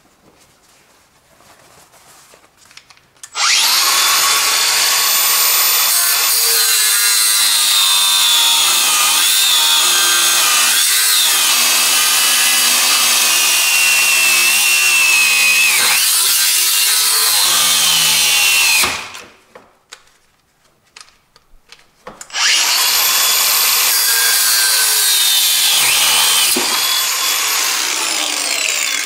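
Makita 18V cordless angle grinder with a cutting disc cutting through a steel car drive shaft: a high motor whine over the grinding of disc on metal. It runs in two cuts: the first starts about three seconds in, lasts some fifteen seconds and then dies away; after a short pause with a few clicks, the second cut starts and winds down near the end.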